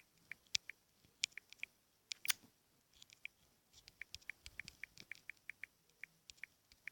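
Quick, irregular taps of typing a message on a phone touchscreen, faint, with a busier run of taps in the second half and one sharper click a little over two seconds in.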